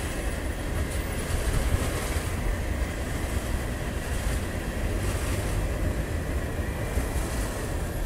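Motorcycle riding noise picked up by a helmet-mounted camera: a steady low rumble of engine, road and wind buffeting on the microphone.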